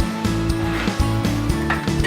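Background music with a steady, clicking beat.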